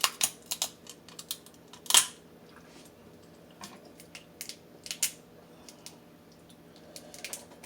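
Crab shells being cracked and picked apart by hand: sharp snaps and scattered small clicks, the loudest just after the start and about two seconds in.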